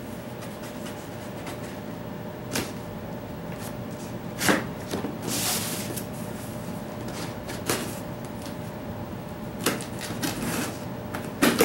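A cardboard shipping box being cut open: a blade scraping along the packing tape, with scattered sharp taps and scrapes on the cardboard and one longer scraping stroke about five seconds in.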